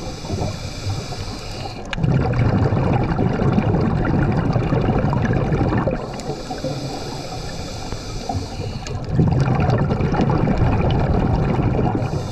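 Scuba diver breathing through a demand regulator underwater: a hiss with each inhale, then a louder low rumble of exhaled bubbles, in a slow cycle of about seven seconds. Three inhales and two bubble exhales are heard.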